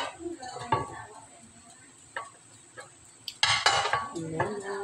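Metal kitchen tongs clicking and knocking against a dish while roasted chicken pieces and grilled lemon halves are moved about, in a few separate taps, with a louder, longer stretch of scraping noise about three and a half seconds in.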